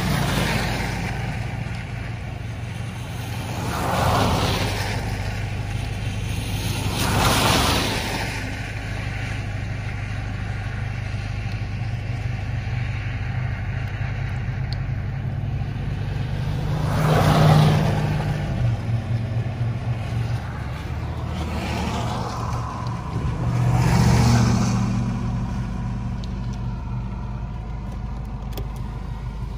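Steady low hum of a car's engine and cabin while it sits in slow traffic. Five times other vehicles pass by, each a swelling hiss of tyres on wet pavement lasting about a second; the two loudest, about two-thirds of the way in, carry a passing engine note.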